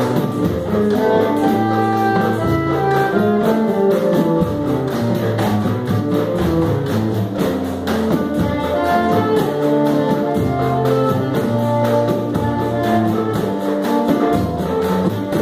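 Live samba ensemble playing: a wind instrument carries the melody over guitar and bass notes, while hand percussion, including a large bass drum, a cajón, a frame drum and small shakers and tambourines, keeps a steady beat.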